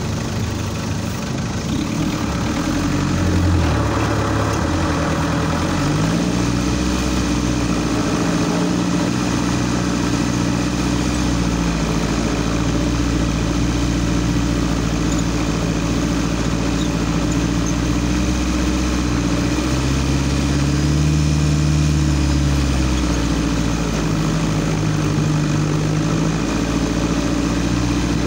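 Off-road car's engine running as it drives over a rough dirt track, its pitch rising and falling with the throttle, with a climb about six seconds in and another about twenty seconds in.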